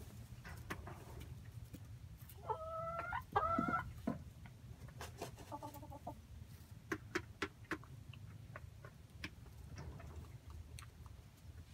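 Chickens calling: two drawn-out, level-pitched calls in quick succession a few seconds in, then a softer one a few seconds later. Scattered short clicks and ticks run over a steady low rumble underneath.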